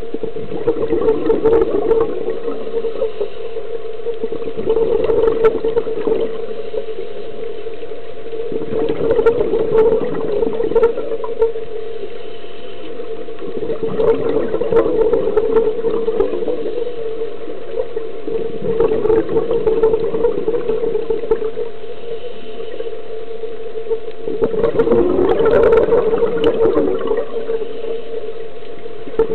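Scuba diver's breathing heard underwater: exhaled bubbles rush and gurgle out of the regulator every few seconds, about six breaths in all, over a steady hum.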